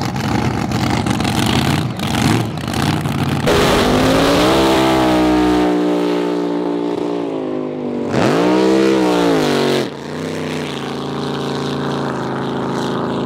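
Drag-racing boat engines. A race engine runs with a rough, lumpy clatter, then about three and a half seconds in an engine note climbs steeply and slowly falls away as a boat makes its run. Around eight seconds there is a short sharp rise and fall in pitch, and then a steadier engine note.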